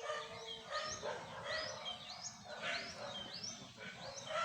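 Small birds chirping outdoors, a faint run of short, quick sweeping notes repeating about once or twice a second.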